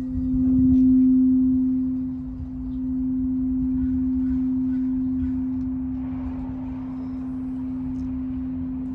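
Large frosted quartz crystal singing bowl, the root-chakra bowl, ringing out with one steady low tone that slowly fades after being played with a mallet.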